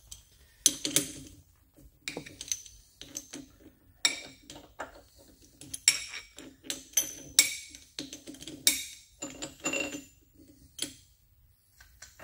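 Steel clinking and clattering at a milling machine as a three-jaw chuck is loosened with a chuck key and steel parts are handled on the table. Many sharp clinks, several with a brief high ring, the loudest about a second in and again in the second half.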